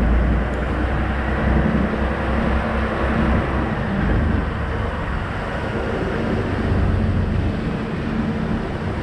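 DAF XF truck's diesel engine running at low revs while the lorry creeps forward, a steady low drone.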